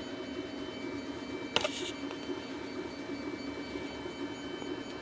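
A hand screwdriver with a Torx bit undoing a screw in a plastic tool housing: a steady low hum with a faint high whine, and one short click about one and a half seconds in.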